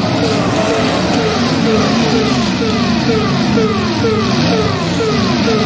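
Demolition-derby pickup truck engines revving hard while the trucks push against each other with wheels spinning in the dirt. The pitch falls and jumps back up about twice a second.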